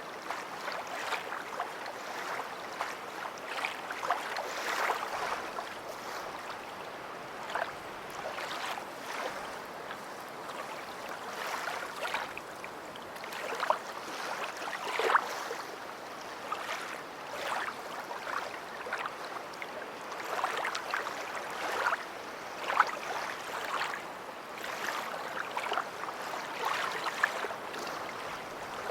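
Small waves lapping and washing on a beach: a steady hiss of moving water broken by frequent short splashes, with a few louder ones.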